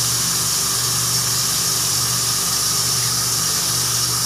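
Bathroom sink tap running steadily onto a rabbit being washed, with a low steady hum underneath.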